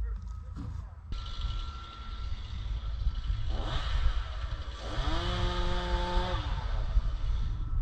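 Two-stroke chainsaw revving: the engine note sweeps up about halfway through, holds at full throttle for over a second, then drops as the throttle is released.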